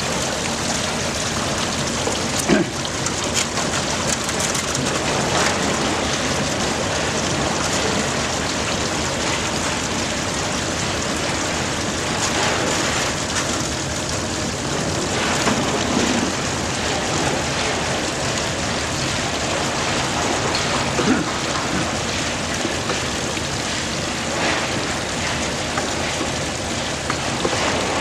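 Shaking table (gravity concentrator) running with ore being separated: wash water and slurry flow and splash across the shaking deck in a steady, rain-like hiss, with a few faint ticks.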